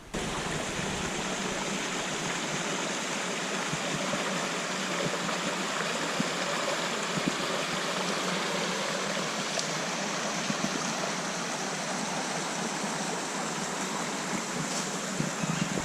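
Forest creek cascading over rocks: a steady, even rush of running water.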